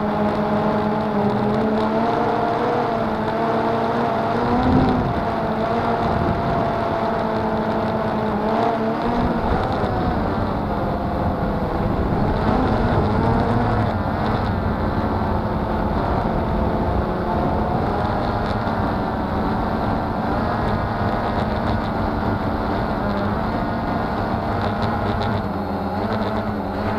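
Cheerson CX-20 quadcopter's motors and propellers whirring, heard through its own onboard camera, with the pitch wavering up and down as the throttle changes. A brief louder knock about five seconds in.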